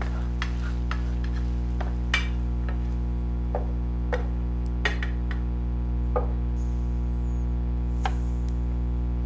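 Kitchen cookware sounds: a utensil knocking and clinking against a pan and plate about eight times, scattered through, as stir-fried food is cooked and served, over a steady low hum.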